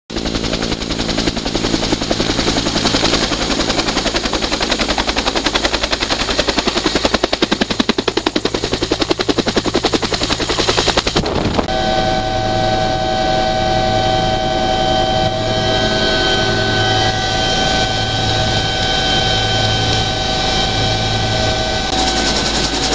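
Helicopter rotor chopping in very rapid beats with the turbine engine running, heard close up from on board. About halfway through, a steady high turbine whine joins the rotor beat.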